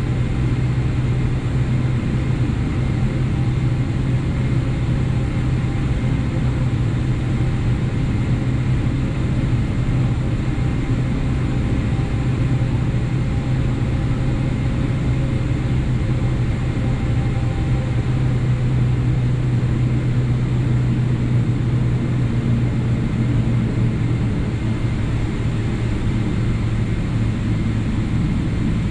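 Boeing 777-300ER's GE90-115B turbofan engines at taxi power, heard from inside the cabin: a steady low hum with a faint higher whine that fades out about two-thirds of the way through.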